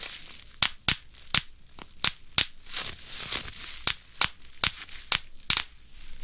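Plastic bubble wrap being squeezed by hand: a run of sharp, irregular pops, roughly two or three a second, as individual bubbles burst, over the crinkle of the plastic sheet.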